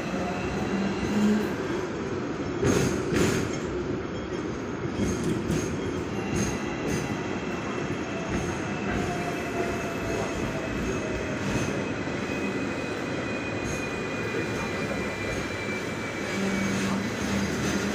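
Hong Kong double-decker tram running on its street track, heard from on board: a steady rumble of wheels on rails with a thin, high wheel squeal held through much of it. A few sharp knocks come from the wheels about three seconds in and here and there after.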